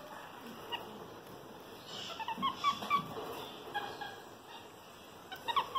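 A series of short, high animal chirps and squeaks, clustered about two to three seconds in and again near the end.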